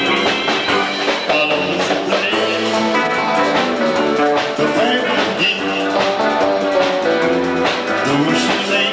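Band music playing steadily, with several instruments sounding together.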